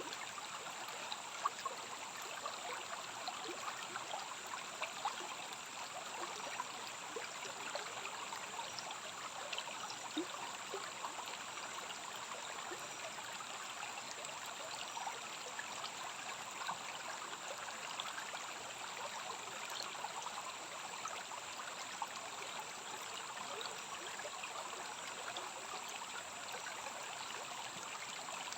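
Stream running steadily with a constant splashing trickle, and a steady high-pitched whine above it.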